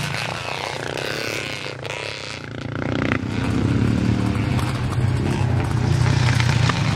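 Vintage dirt bike engines running on a motocross course, a steady engine note that grows louder about three seconds in.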